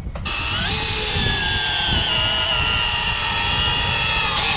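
Cordless drill motor running steadily for about four seconds with a high whine whose pitch dips slightly, then stopping near the end.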